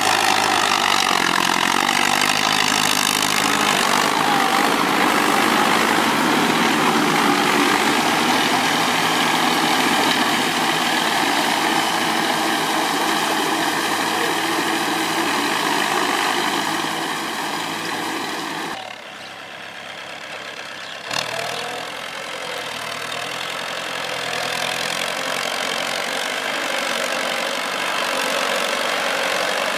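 Kubota L-series tractor's diesel engine running steadily while driving a rotary tiller. About two-thirds of the way in the sound drops away briefly, a sharp click follows, and then the engine runs on at a lower level.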